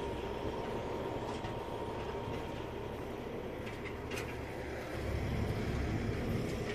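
Vehicle engine rumbling steadily, swelling louder about five seconds in, with a thin steady whine.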